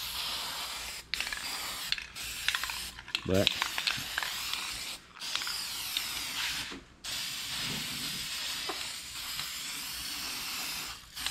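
Aerosol can of Rust-Oleum Rust Reformer spraying: a steady hiss in five long bursts, each broken off briefly before the next.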